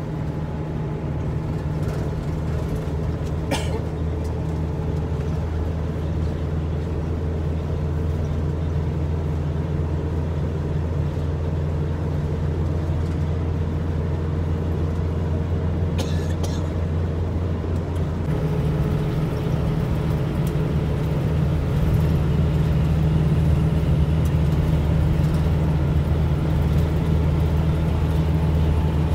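Steady low drone of a medium diesel bus cruising at highway speed, heard from inside the passenger cabin: engine hum with road noise. About two-thirds of the way through, the hum shifts in pitch and grows a little louder.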